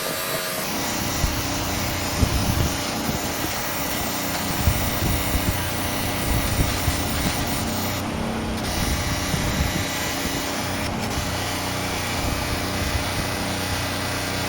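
A power tool running steadily, a constant hiss over a low motor hum; the high part of the hiss dips briefly about eight seconds in.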